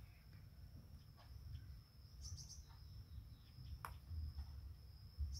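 Garden ambience: an insect keeps up a steady high-pitched drone while a bird gives a short burst of quick chirps about two seconds in. A single sharp click comes just before four seconds, over a low rumble.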